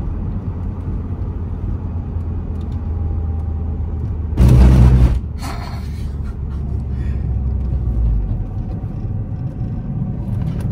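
Steady road and engine rumble inside a Mini Cooper's cabin while it is driven on newly fitted coilovers, with one loud thump-like burst about four and a half seconds in. The low rumble eases about eight seconds in.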